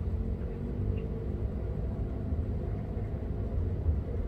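A steady low rumble, outdoor background noise with no distinct events.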